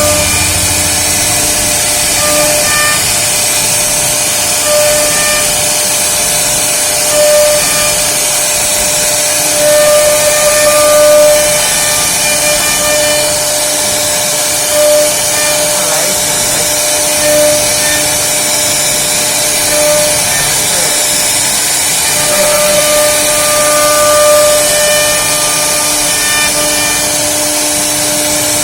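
CNC router cutting wood: a steady high hiss from the spindle and bit, with machine tones that come and go every second or two as the axes move.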